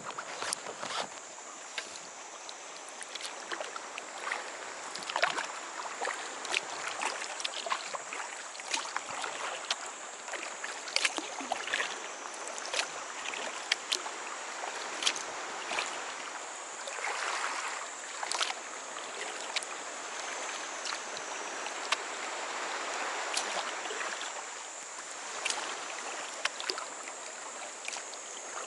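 Water splashing and dripping around a sea kayak being paddled, with many small drips and splashes from the paddle blades and two louder swells of splashing partway through.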